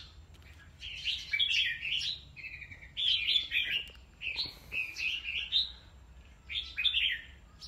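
Red-whiskered bulbuls singing: short phrases of quick, warbled chirping notes, one burst every second or two.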